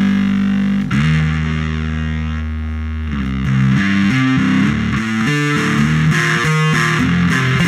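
Distorted electric bass guitar playing through an amp: a low note held for about three seconds, then a riff of quickly changing notes.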